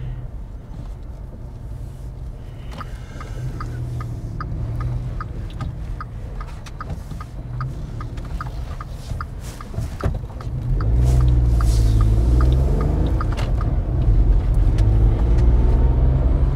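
Motorhome engine and road noise heard inside the cab, with a turn indicator ticking steadily for several seconds. Past the middle the engine grows markedly louder and its pitch rises as the vehicle accelerates away.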